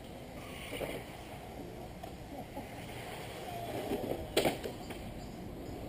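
Radio-controlled cars running on an asphalt track: a steady noisy hiss with no clear motor rhythm, and one sharp knock about four and a half seconds in.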